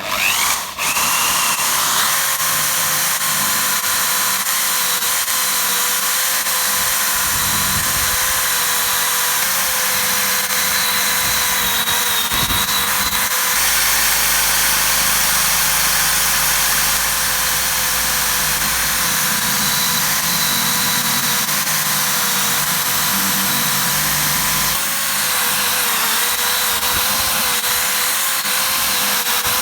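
Electric power tool switched on and running steadily: a constant motor whine over a strong hiss, with small shifts in load around the middle.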